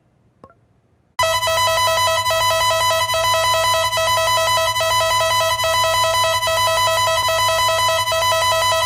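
Emergency Alert System alarm tone: a loud, steady electronic sound of several pitches at once. It cuts in suddenly about a second in and holds unbroken.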